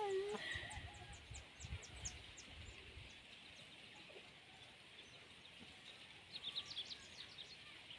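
A chicken gives a short squawk right at the start, then faint rustling follows. Quick high-pitched chirps come in a run early on and again near the end.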